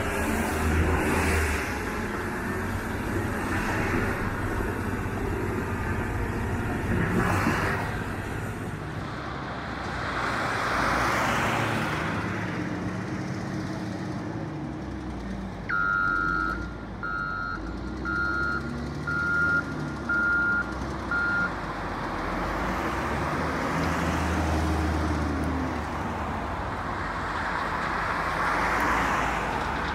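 Diesel engine of a Komatsu D155AX crawler bulldozer working, its revs rising and falling several times. Midway a reversing alarm beeps six times, about once a second.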